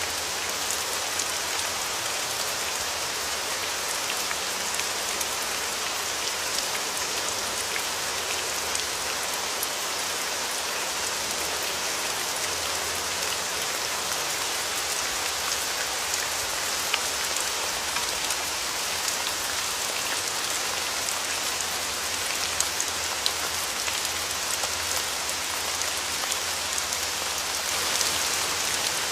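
Steady rain falling, an even hiss with many individual drops ticking and pattering on a surface.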